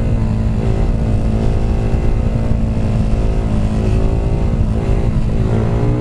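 A KTM supermoto motorcycle engine held at steady revs through a wheelie, with wind rushing past. Near the end the revs dip and rise again as the throttle is worked.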